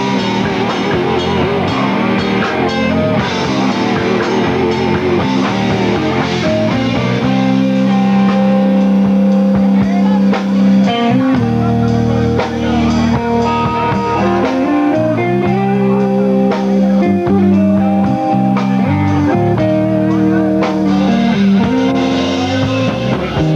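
Rock band playing live: electric guitar over bass guitar and drum kit, with long held notes through the middle stretch.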